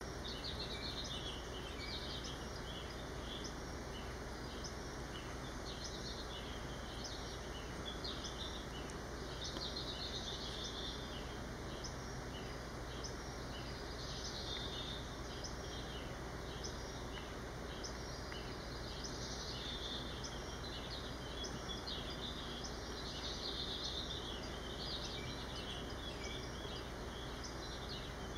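Steady background hiss with high, thin chirping calls that come and go in clusters every few seconds.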